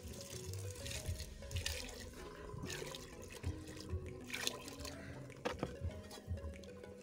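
Water poured from a plastic container into a cooking pot of maize, splashing, stopping about five and a half seconds in.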